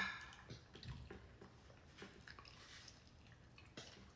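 Faint, scattered wet clicks and smacks of someone eating a spoonful of grits and eggs, with a sharp click at the start.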